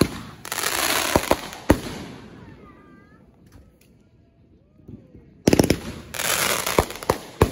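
Consumer aerial fireworks launching from the ground in two salvos about five and a half seconds apart. Each salvo is a quick string of launch pops, then a crackling hiss with a few sharp bangs, fading away.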